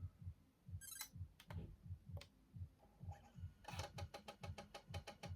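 Sony Mavica floppy-disk camera taking a picture and saving it to its 3.5-inch floppy disk drive. A few faint clicks come first, then the drive writes in a fast run of ticks, about ten a second, over a faint low pulse that repeats about three times a second.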